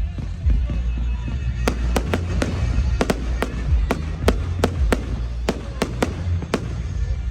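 Fireworks going off in a rapid run of sharp bangs and crackles, about a dozen in quick succession, over music with a heavy bass.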